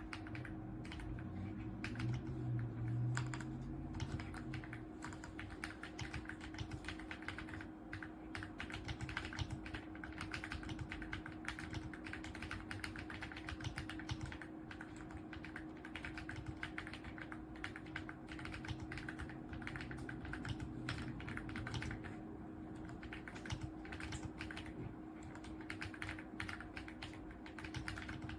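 Continuous fast typing on an AULA F99 mechanical keyboard with pre-lubed linear switches: a dense, uneven stream of keystroke clacks.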